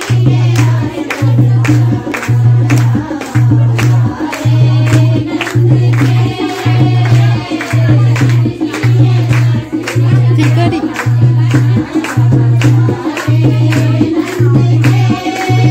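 Group of women singing a Pahari devotional folk song (bhajan) together, with hand clapping and a steady low beat about twice a second.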